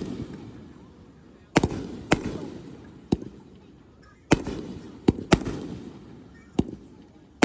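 Aerial fireworks shells bursting overhead: about seven sharp bangs, some in quick pairs, each trailing off in a rumble that fades over a second or two.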